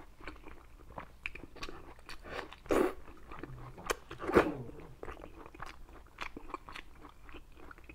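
Close-up mouth sounds of a person biting and chewing braised pig's trotter: wet, sticky chewing with small smacking clicks and two louder smacks about three and four and a half seconds in.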